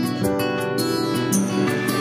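Background music: gentle plucked guitar with a regular beat.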